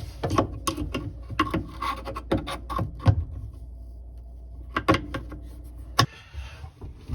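Clicks and knocks from parts being handled inside a dishwasher around its lower spray arm. A rapid run of sharp clicks comes over the first three seconds, a short pause follows, then a few more knocks, the sharpest about six seconds in.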